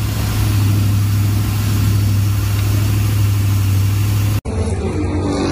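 Jet boat's big-block V8 running under way, a steady, loud low engine drone over the rush of water and wind. It cuts off abruptly about four and a half seconds in, giving way to a different sound with rising tones.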